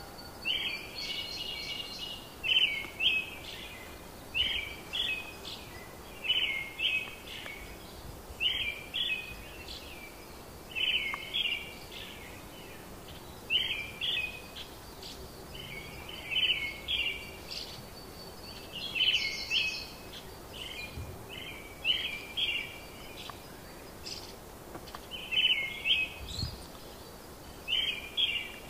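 A songbird calling over and over in short phrases of two or three clear notes, repeated every second or two, over a steady faint outdoor background.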